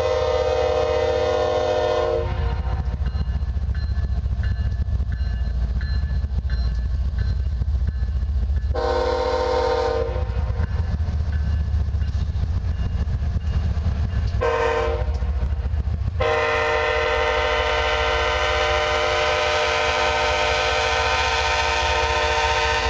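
BNSF ES44AC diesel locomotive blowing its multi-chime air horn in the grade-crossing pattern: long, long, short, then a final long blast. A steady low rumble of the approaching train lies under it.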